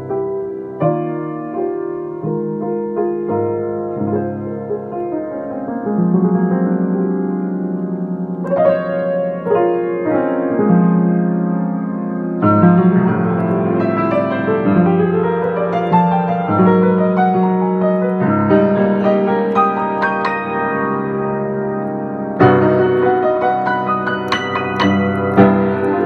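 Solo piano playing a jazz tune, with chords and melody notes sounding continuously.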